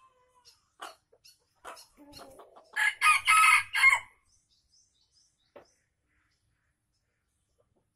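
Red junglefowl rooster crowing once: a short crow of about a second, broken into several quick notes. A few faint short sounds come before it.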